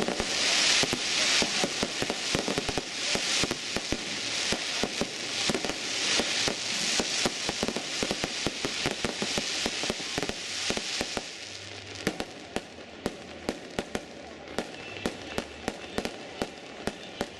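Aerial fireworks going off: a dense barrage of bangs and crackling for about the first eleven seconds, thinning out to separate sharp pops after that.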